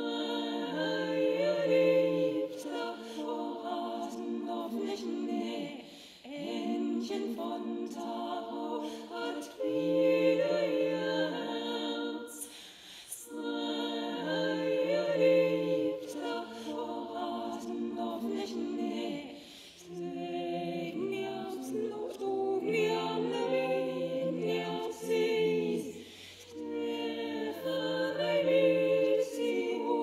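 Soundtrack music: unaccompanied voices singing sustained chords in phrases of about six seconds, with short breaks between them. A faint low drone joins about halfway through.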